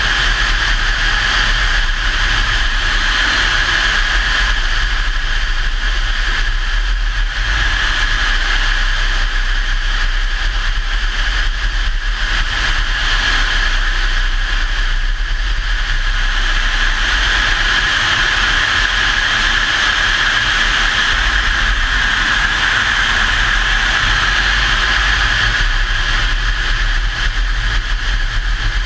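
A vehicle's engine running steadily with a heavy low rumble and a constant noise, without letting up.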